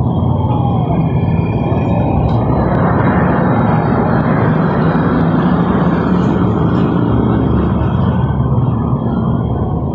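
Engine of a 1600 cc motor scooter running steadily, its sound fuller and rougher from about three to eight seconds in.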